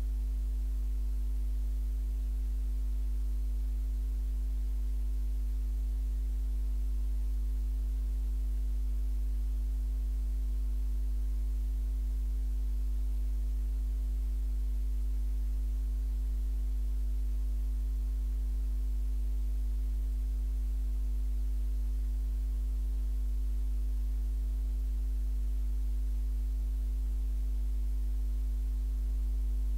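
Steady low electrical hum: a deep drone with several fainter steady tones above it, unchanging and with no other sound.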